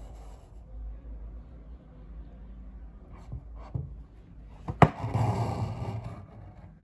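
Hand embroidery handling sounds over a faint low hum. About five seconds in there is a sharp click, followed by a second or so of rustling as embroidery thread is drawn through cloth stretched in a hoop.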